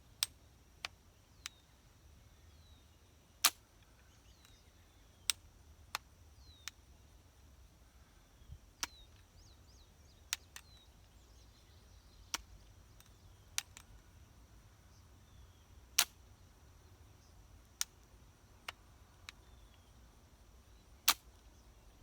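Sharp metallic clicks from a flintlock pistol's lock at irregular intervals, three of them louder, as the lock is cocked and snapped. No shot goes off: the sparks from the flint are not igniting the priming in the pan. Faint bird chirps behind.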